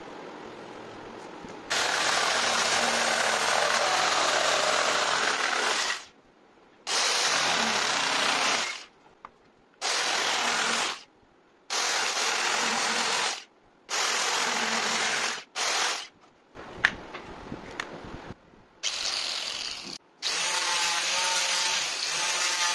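Electric jigsaw cutting a wooden board, running in a series of bursts of a few seconds each with brief stops between them.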